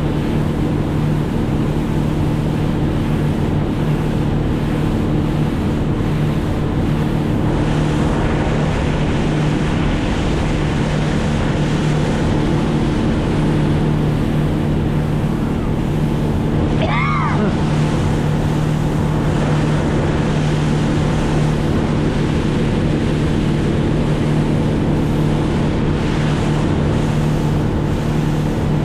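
Motorboat engine running steadily at cruising speed, with water rushing past the hull and wind on the microphone. A brief wavering high chirp sounds once a little past the middle.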